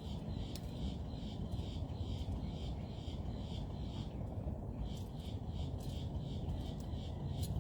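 Small birds chirping in quick, repeated short calls over a steady low rumble, with a brief lull in the calls about four seconds in.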